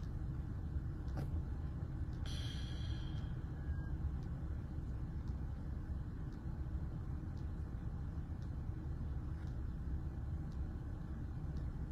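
Steady low rumble of a car cabin, with one short breathy sound, like a sigh, about two seconds in.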